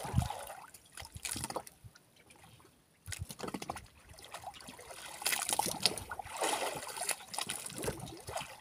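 Wet fishing handline being hauled in hand over hand, with water trickling and dripping off the line, while a fish is brought up from about 80 to 90 m. The sound comes in irregular bursts, with a brief lull about two seconds in and the busiest stretch in the second half.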